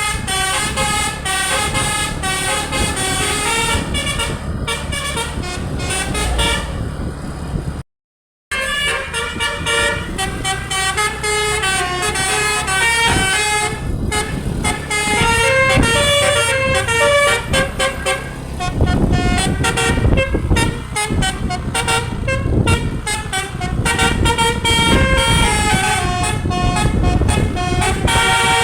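Telolet basuri musical air horn playing melodic tunes, its notes stepping up and down almost continuously over the rumble of a bus engine. The sound cuts out completely for about half a second around eight seconds in.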